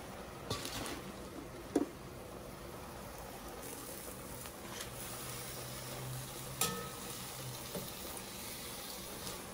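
Cooking greens in a cast-iron Dutch oven of hot, bubbling broth: a steady low sizzle as the greens are dropped in and stirred with a metal slotted spoon. A few light knocks against the pot.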